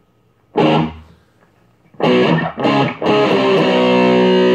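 Electric guitar played through a 1986 ProCo RAT distortion pedal: one distorted chord struck about half a second in and dying away, then after a short gap a few quick strummed chords and a chord left ringing.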